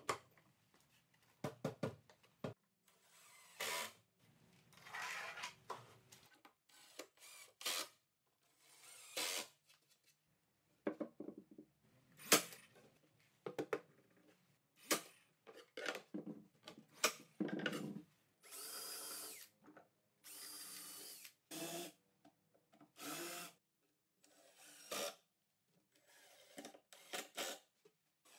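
Cordless drill running in repeated short bursts, driving screws into plywood panels, with knocks and clatter of boards and tools being handled between the bursts.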